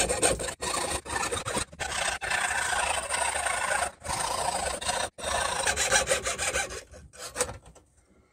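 Quick back-and-forth rasping strokes of a hand tool working a metal jewelry pendant, with a few brief breaks, tailing off near the end.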